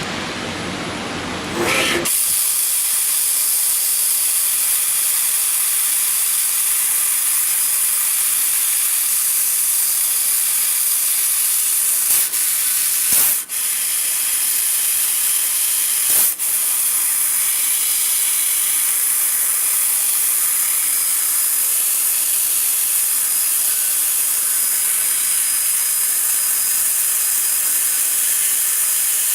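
Steady high hiss of a CNC laser cutter's assist gas jetting through the cutting head as it cuts metal, setting in about two seconds in. It breaks off briefly a few times about halfway through, as the gas cuts between cuts.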